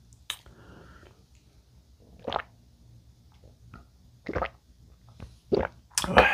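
A shot of soju being drunk: a few separate gulps spread over several seconds, then a louder sharp sound near the end.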